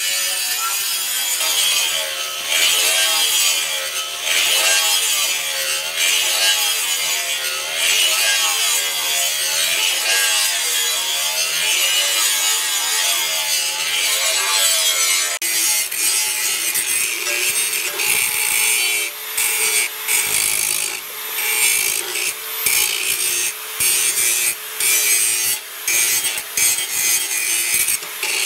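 Electric angle grinder with an abrasive disc grinding the steel of a knife blade made from an old chainsaw, a continuous harsh grinding over the motor's whine. In the second half the whine is steadier and the grinding breaks off briefly several times.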